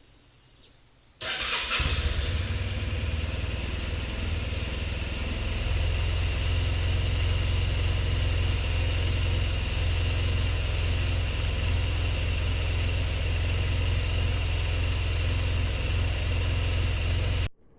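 Honda Silverwing scooter's engine starting about a second in and then running steadily at idle, stopping abruptly near the end.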